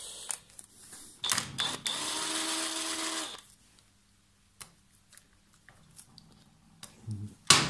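Cordless impact driver running in short bursts, the longest about a second and a half, undoing the tight nut on a Triumph Trident T160's gearchange foot. After it stops there are a few faint clicks as the loosened nut is turned off by hand.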